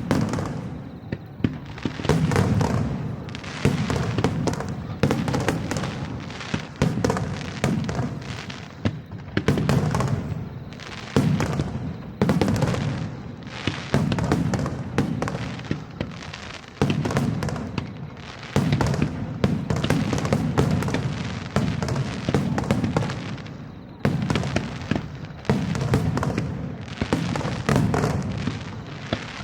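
Aerial firework shells bursting one after another in a dense barrage: sharp reports often about a second apart, each trailing off in an echoing rumble.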